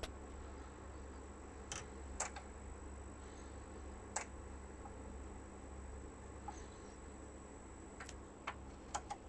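Panasonic SL-J7 belt-drive automatic turntable's auto-return: a faint steady low hum with scattered light clicks as the tonearm lifts off the record and swings back to its rest.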